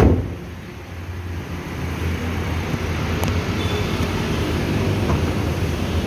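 A car door shutting with a thud at the very start, then the Daihatsu Sigra's 1.2-litre dual VVT-i engine idling steadily, growing louder as the bonnet is opened over it, with a light click about three seconds in.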